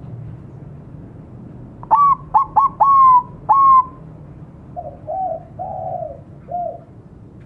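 Zebra dove (Bangkok perkutut) song: about two seconds in, a quick run of five short, clipped notes that each sweep up and hold. These are followed by four lower, softer notes near the end.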